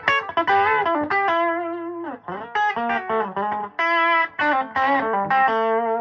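Fender Telecaster on its bridge pickup played through a 1960s Elk Custom 30 valve amp with EL84 power valves, volume at 75%: a lead line of picked single notes and short phrases, several with string bends.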